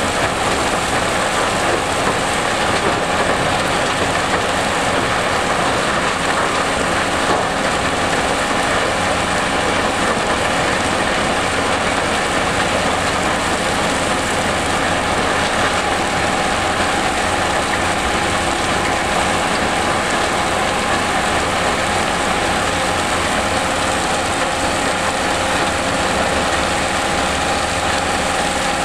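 GIPO R131C tracked mobile impact crusher running: a steady, loud mechanical din with a constant tone running through it, as crushed rubble pours off its discharge conveyor onto the stockpile.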